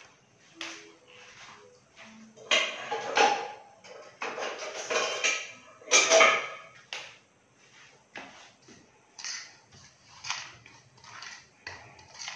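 A metal spoon scraping and clinking against a stainless steel bowl in intermittent strokes, with a run of quicker, shorter strokes in the last few seconds, as dry fish masala is mixed into vinegar.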